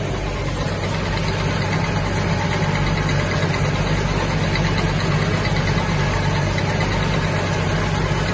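Tractor engine running steadily at an even speed, as when powering a hay baler.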